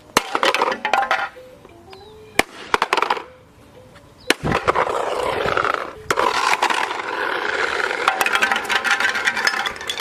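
A plastic toy race car being broken: a quick run of sharp cracks and clatter, single hard hits about two and four seconds in, then a long, continuous stretch of crunching and scraping.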